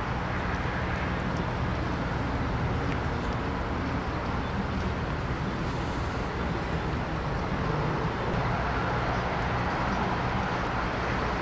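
Steady outdoor rumble of vehicle engines and traffic with wind noise, a low engine hum underneath, a little louder in the last few seconds.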